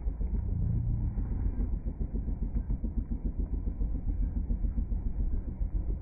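Steady low rumble of inline skate wheels rolling over asphalt, fluttering quickly as the skater is towed along.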